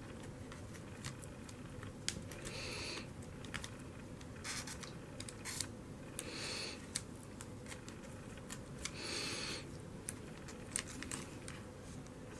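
Faint scrubbing of a cotton swab against the spokes and hub of a toy train locomotive's wheel, in several short strokes a second or less long, a few seconds apart, with small light clicks and taps of handling between them.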